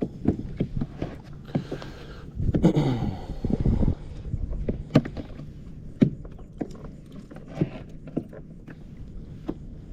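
Irregular sharp knocks and thumps on a kayak's hull as a just-netted spotted seatrout flops and is handled, with a louder scuffling, splashy stretch a few seconds in.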